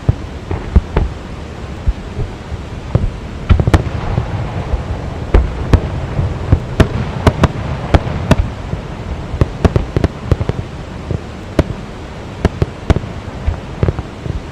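Fireworks exploding in a rapid, irregular series of sharp bangs over a steady rushing background.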